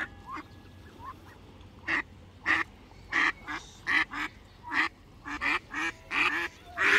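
Mallard hens quacking: a run of short quacks starting about two seconds in, coming faster toward the end.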